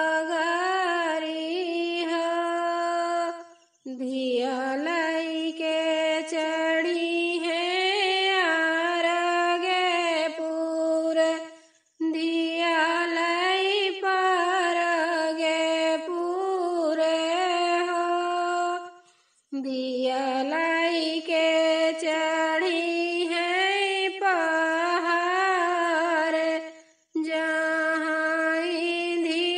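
A woman singing a Bagheli folk song unaccompanied. She sings in long phrases with a short break about every eight seconds.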